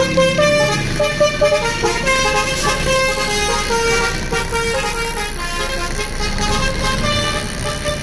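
Basuri musical horn on a coach bus playing a fast tune of short stepped notes, with the bus's engine running underneath.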